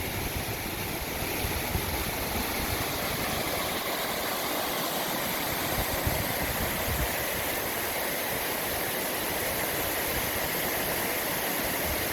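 Waterfall with water rushing steadily.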